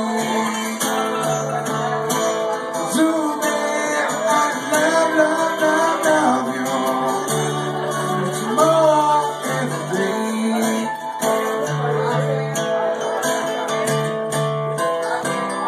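Acoustic guitar and mandolin played together live: strummed guitar chords under picked mandolin notes.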